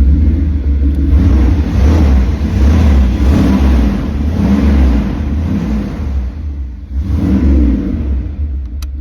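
A 1994 van's 350 V8 running, with a steady low rumble, revved up in a long swell and then a shorter one near the end.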